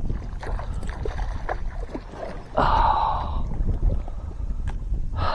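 Handling knocks and water sounds on a fishing kayak over a low rumble of wind on the microphone, with two short rushing noises, one about halfway through and one at the end.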